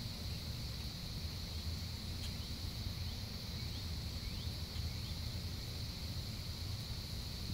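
Outdoor ambience: a steady high-pitched insect trill over a low rumble, with a few faint short chirps in the middle.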